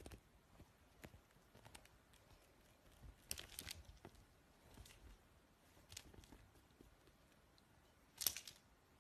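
Soft rustling and crinkling as a kitten pounces on and bites at a string toy on a duvet, in a few short bursts, the sharpest one near the end.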